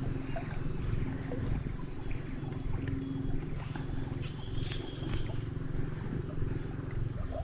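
A constant high-pitched insect drone over a steady low rumble.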